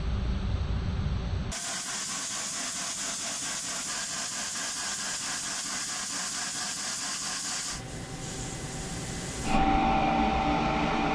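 Coolant spraying inside the enclosure of a Puma TT2100SYYB CNC lathe during a part-off cut in Haynes 188, heard as a steady hiss. A low rumble comes before it for the first second and a half, and near the end the sound grows louder with a steady whine added.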